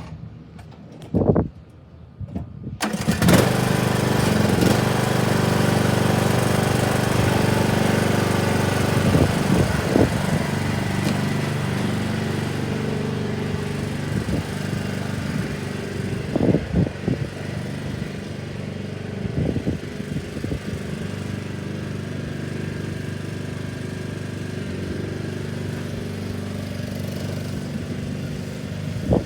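Riding lawnmower's engine starting about three seconds in, after a single click, then running steadily, with a few knocks over it.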